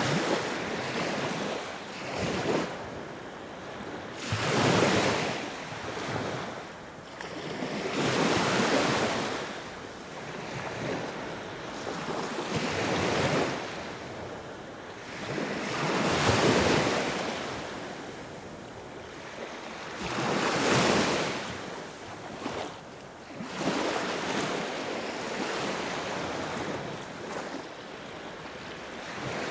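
Sea waves surging and washing in, one swell every three to four seconds, each rising to a loud rush of hiss and fading back to a softer steady wash.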